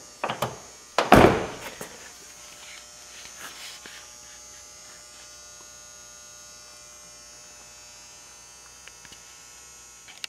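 The 2000 Chevy Silverado's door shutting with one thud about a second in, after a few lighter knocks. After it, a steady electrical hum with a faint high whine.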